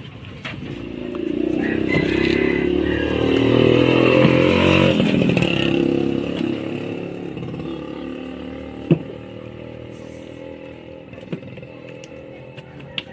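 A small engine passing by, growing louder over the first few seconds and then fading away, with a single sharp knock about nine seconds in.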